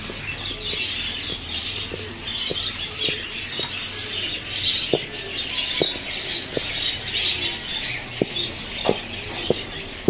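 Hands stirring a dry supplement mix of fine powder and small granules in a plastic tub: a steady gritty rustle and scrape, rising and falling with the strokes.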